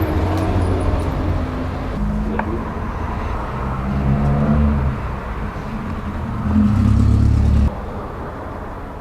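A motor engine running, a low hum that rises and falls in pitch, cutting off abruptly near the end.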